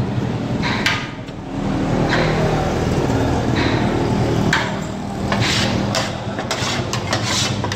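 A metal ladle clinking and scraping against a large metal cooking pot and small metal bowls as curry is served out, in a string of sharp irregular clinks, over a steady low background rumble.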